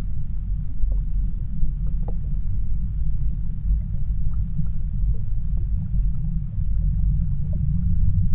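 Low, steady underwater rumble of a fast river current, with faint scattered ticks.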